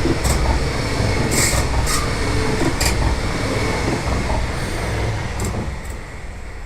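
A train running on rails: a steady low rumble with a few short, sharp high screeches or clicks over the top. It grows quieter near the end.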